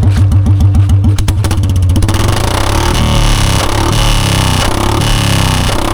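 Royal Enfield Bullet's single-cylinder engine thumping and revving through a bare C-bend exhaust pipe with no silencer fitted, the beats coming faster over the first second and a half. Then loud music with a beat and a stepping bass line takes over.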